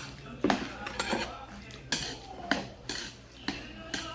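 Eating utensils clinking against dishes, a series of sharp clinks about every half second.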